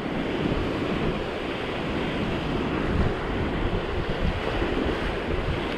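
Sea surf washing and foaming over rocks at the shore, a steady rushing, with wind buffeting the microphone.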